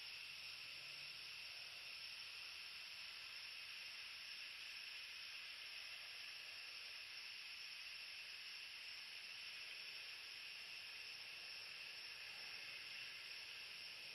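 Faint, steady high-pitched hiss of a night insect chorus, crickets trilling continuously with no distinct calls or knocks.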